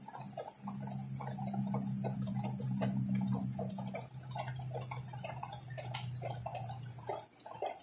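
Rainwater dripping and pattering irregularly onto wet surfaces under a hiss of rain. Beneath it runs a steady low hum, which fades out near the end.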